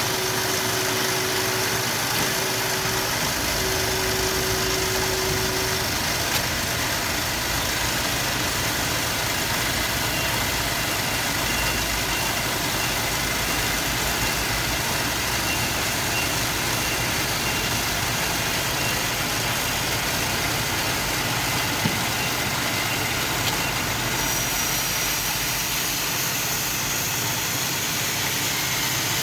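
Amada HA-250 automatic horizontal metal-cutting band saw running with a steady machine noise. A low steady tone stops about six seconds in, and a faint high whine comes in later.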